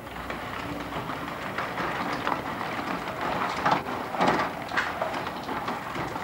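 Pedal-driven bicycle water pump (veleropompe) being pedaled over a well: its chain and pump linkage clatter with repeated irregular knocks, a few louder ones in the middle.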